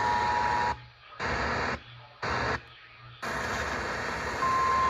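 The two-tone EAS attention signal over radio static, cutting off under a second in. Then the static cuts in and out twice before running steadily, and a single steady NOAA Weather Radio alert tone starts near the end.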